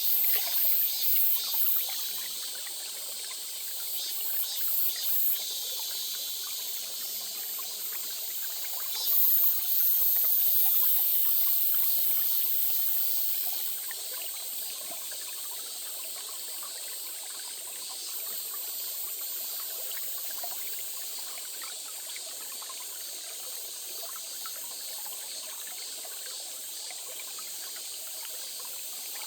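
A small stream trickling steadily. Over it, a shrill high-pitched call pulses in quick bursts at the start and again a few seconds in, then holds steady and loud for about five seconds in the middle.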